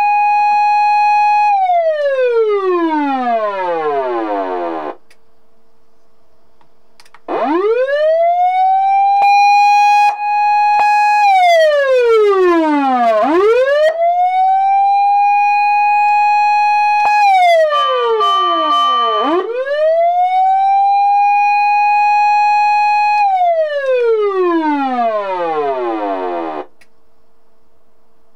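Osaka Siren MK-11 electronic siren amplifier sounding its up-and-down wail, the Japanese fire-engine siren: each cycle sweeps quickly up, holds a high tone for a few seconds, then glides down. It stops about five seconds in, restarts after a two-second pause and runs three more cycles before cutting off near the end, with a few faint clicks and a brief extra steady tone during the third cycle.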